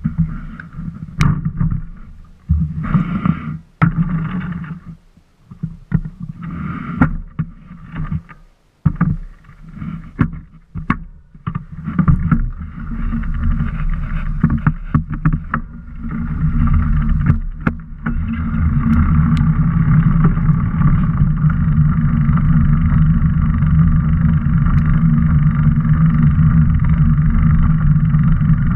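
Riding noise of a bicycle on a paved path, picked up by a camera mounted on the bike: wind rush and tyre hum. It is patchy with scattered knocks at first, then becomes a steady rushing hum for the last ten seconds or so.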